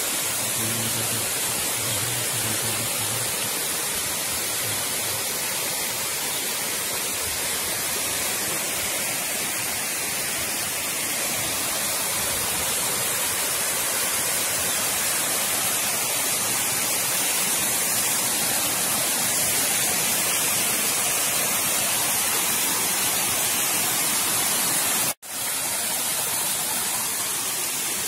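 Steady rushing hiss, strongest in the highs, with no voices. It cuts out for an instant about 25 seconds in, then resumes.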